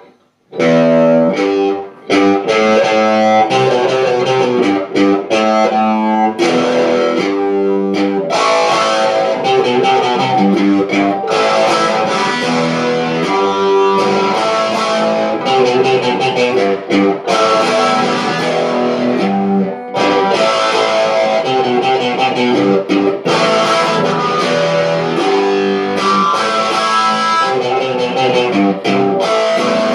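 Samick electric guitar playing a riff, note after note, starting about half a second in and continuing with only brief breaks.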